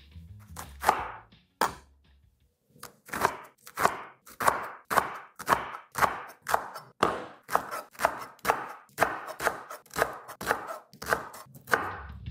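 Chef's knife slicing rolled cabbage leaves into thin strips on a wooden cutting board: crisp cuts, each ending on the board. There are a couple of cuts, a short pause, then a steady run of about two cuts a second.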